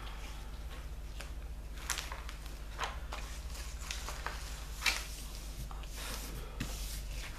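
Protective plastic film and canvas of a diamond painting kit rustling and crinkling under hands as they smooth it flat and lift a corner, with sharper crackles about two, three and five seconds in, over a steady low hum.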